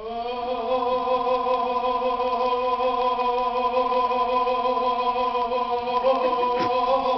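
A woman singing one long held note, steady in pitch with a slight waver, that stops abruptly after about seven seconds.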